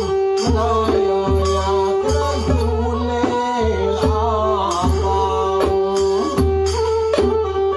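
Kantrum folk ensemble playing: hand-beaten barrel drums keep a steady, regular beat under a bowed fiddle melody with held notes.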